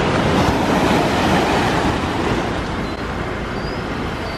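Sea waves washing onto a beach, with wind rumbling on the microphone; the rush is a little stronger in the first couple of seconds.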